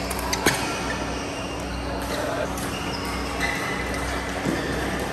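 Badminton rackets striking a shuttlecock in a doubles rally: several sharp smacks, the loudest about half a second in, the others a second or more apart.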